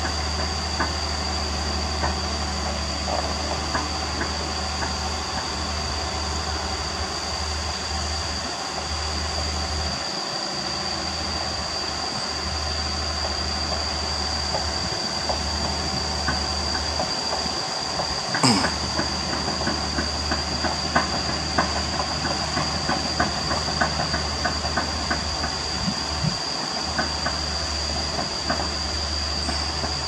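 Doosan DX225LC crawler excavator's diesel engine running, its low hum dipping now and then, with scattered metallic clicks and clanks from the machine. A sharp knock comes just past halfway, followed by a denser run of clicks, and a steady high-pitched tone sits above it all.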